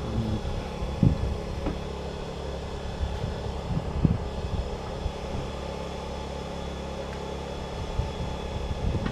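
Wind buffeting the microphone in low, uneven gusts, over a steady mechanical hum.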